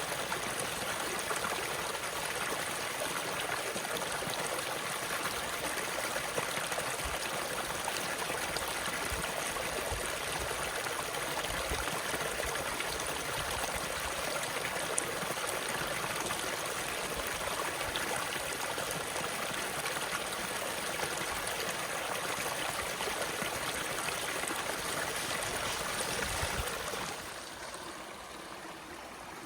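Stream water running steadily, a constant rush of water with no break. It drops to a softer level near the end.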